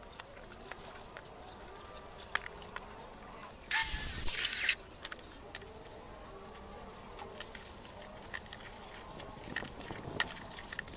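Scattered light knocks and taps of wood and tools being handled, with a loud burst of about a second from a cordless circular saw about four seconds in.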